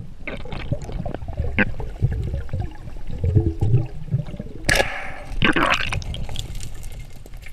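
Fast river current heard underwater, gurgling with many small clicks and knocks, and two louder brief rushes of bubbles or splashing about five seconds in.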